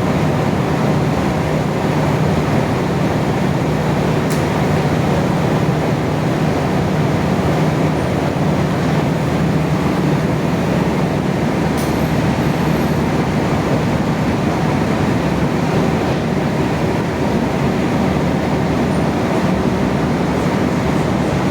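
Steady, loud industrial machinery noise: an even rumble and hiss with a low hum, unchanging throughout, with a couple of faint clicks.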